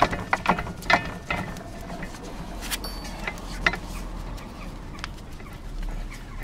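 Screw mechanism of a Sealey MC5905 motorcycle scissor jack being turned by hand to lower it, giving short metallic clicks that bunch together in the first second or so and then thin out, with chickens clucking.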